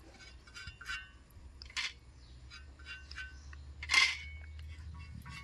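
Light clicks and taps on iron spade and hoe blades, with one sharp metallic clink and brief ring about four seconds in.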